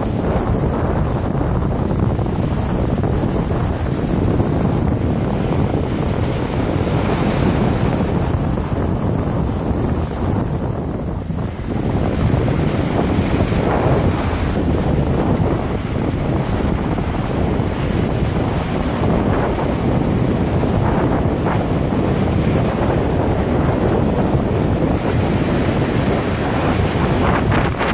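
Ocean surf breaking and washing up a sandy beach, with heavy wind noise on the microphone.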